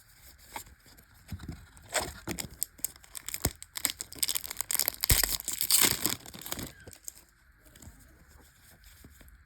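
Foil wrapper of a Yu-Gi-Oh! booster pack being torn open and crinkled by hand, a busy run of crackling and rustling that peaks in the middle and dies down near the end.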